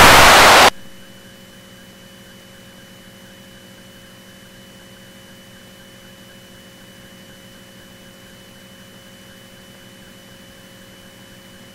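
A loud burst of radio static for about a second at the start, then a steady low hiss with a faint electrical hum on the aircraft's intercom/radio audio feed.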